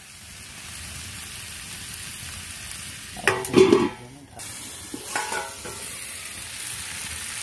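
Potato, pointed gourd and soya-chunk curry frying down in a kadai (the kosha stage), sizzling with a steady hiss. About three seconds in comes a loud metal clatter as the steel lid goes on, and a smaller clink follows about five seconds in.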